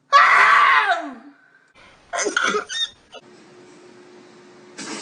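A person sneezing in an exaggerated, comic way: one loud drawn-out cry falling in pitch at the start, then a couple of short bursts about two seconds in.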